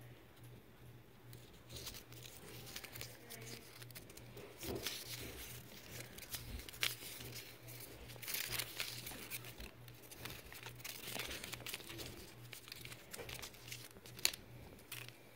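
Paper and plastic packaging crinkling and rustling between fingers as a toy capsule's label and wrapper are handled. The crackles come in irregular flurries, with one sharp click near the end.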